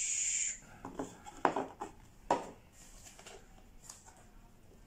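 Cardboard packaging being handled: a short scraping hiss as a white inner box slides out of its printed cardboard sleeve, then a few light knocks and taps of cardboard.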